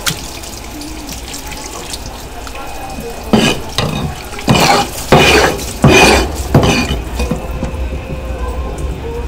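Kitchen tap water running and splashing over a cutting board as raw sea squirt flesh is rinsed by hand. There are five or six loud splashing surges in the middle.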